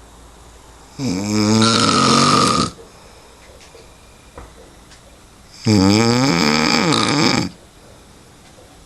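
A man snoring: two loud snores, about a second and about six seconds in, each lasting just under two seconds, with a wavering pitch.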